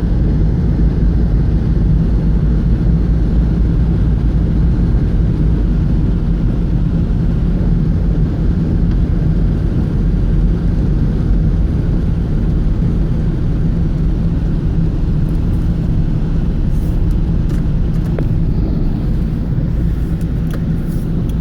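Steady low rumble of a car being driven, heard from inside the cabin: engine and road noise, with a few faint ticks in the last few seconds.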